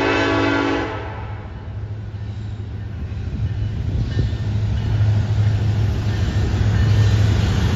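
Horn of an approaching CN freight train's lead diesel locomotive, cutting off about a second in. It is followed by the low, steady rumble of the two locomotives (CN 8892 and 8847), growing louder as the train nears.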